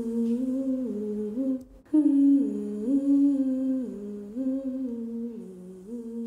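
A woman humming a slow melody, holding each note and stepping up and down between them. It breaks off for a moment just under two seconds in and comes back louder.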